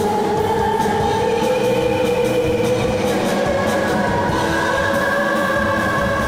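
Live pop-rock band playing: a woman singing long held notes over electric guitars, drums and keyboards, heard from the audience.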